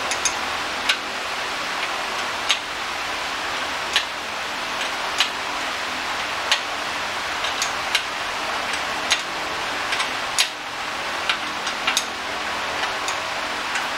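Hand tools working on the engine case: single sharp metal clicks and clinks, about one every second at irregular spacing, over a steady hiss.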